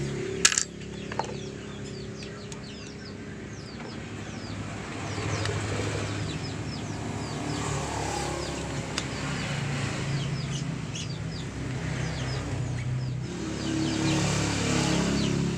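Birds chirping: many short, quick, high chirps throughout, with a lower layer of bird calls under them. One sharp clink about half a second in.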